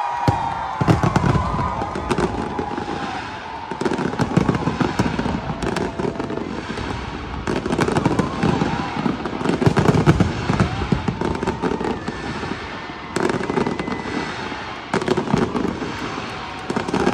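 Large aerial fireworks display going off in waves of many overlapping bangs and crackles, with brief lulls between the volleys.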